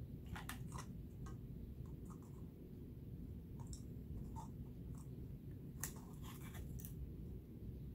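Faint, scattered clicks and crinkles of hard plastic being handled as a broken clear ornament is pressed onto a plastic bottle top, with a denser run of them about six seconds in. A steady low room rumble lies underneath.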